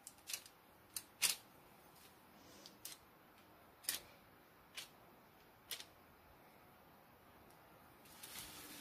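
Faint, sharp clicks of a metal fork crimping the edges of puff-pastry hand pies, its tines tapping the baking sheet through parchment paper about once a second at an uneven pace. A soft rustle follows near the end.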